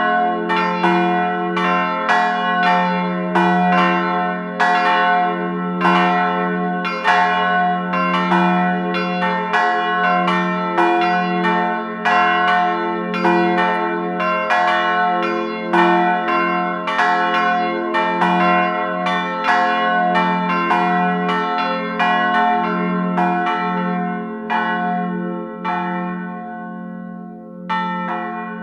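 Church bells ringing a peal: a rapid run of overlapping strokes, about one every half second, over a steady low hum from the bells. Near the end the strokes thin out and the ringing dies away.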